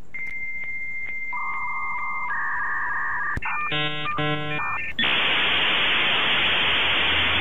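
Dial-up modem handshake: a steady high answer tone, then lower steady tones, two short buzzy chords, and from about five seconds in a steady rush of static as the modems negotiate the connection.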